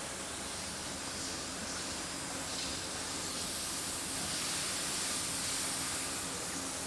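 Steady hiss and hum of running CNC machining equipment and a robot cell on a factory floor.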